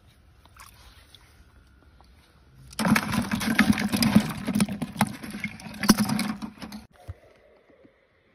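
Asian swamp eels thrashing in shallow water inside a plastic bucket: loud wet splashing full of sharp slaps, starting suddenly about three seconds in and lasting about four seconds, after a stretch of faint low noise.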